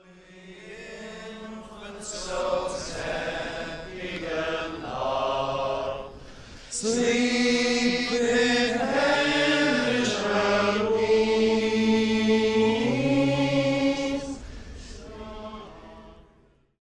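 Men's voices singing a Christmas carol together in slow, held notes. The singing starts faint, grows much louder about seven seconds in, and fades out near the end.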